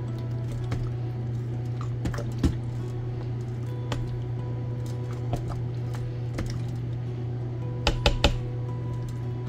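Silicone spatula stirring thick lasagna soup in the stainless steel Instant Pot inner pot: soft wet squishing with scattered clicks and knocks of the utensil against the pot, a quick cluster of them near the end. A steady low hum runs underneath.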